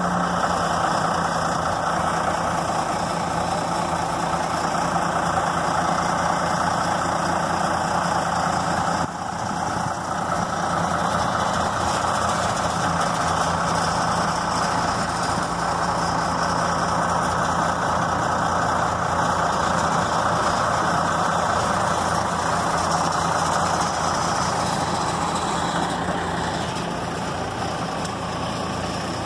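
1996 Ford L8000 truck's diesel engine running steadily while it drives the hydraulics of the rotator grapple crane working its boom and clamshell bucket.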